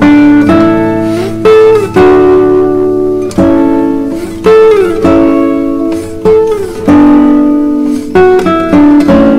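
Intro music of plucked string notes struck one after another, each dying away, with a few notes sliding up in pitch.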